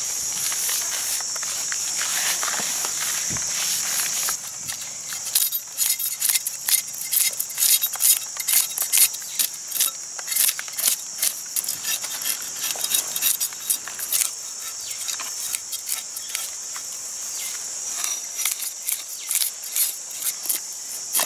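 A knife scraping the scales off an ash-coated fish on a wooden board in quick, repeated strokes, starting about five seconds in, over a steady high drone of insects.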